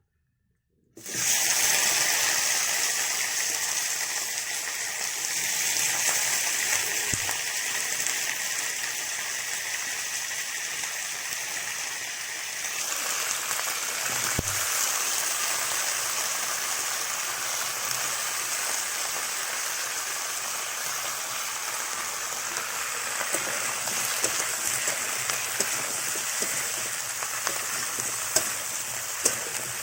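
Food sizzling steadily in hot oil in a kadai, starting about a second in. The hiss changes character a little before halfway, and a few sharp clicks come near the end.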